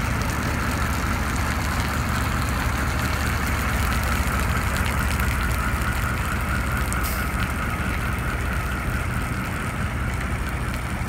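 Diesel engine of a 1979 Ford C-series E-One fire truck idling steadily, with a faint steady high whine above the low rumble.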